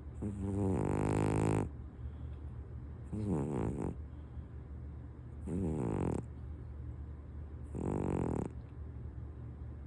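A sleeping Maine Coon cat snoring loudly: four snores about two seconds apart, the first the longest.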